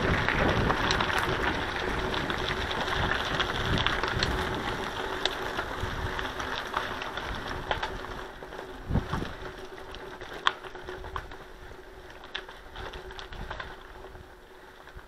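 Bicycle tyres rolling over a loose gravel dirt road: a steady crunching hiss with scattered clicks and rattles from the bike. It is loudest at first and grows quieter through the second half as the riding slows.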